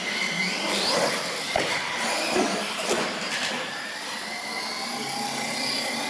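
Radio-controlled monster truck driving, its electric motor and gears whining, the pitch rising and falling with the throttle, with a few light knocks.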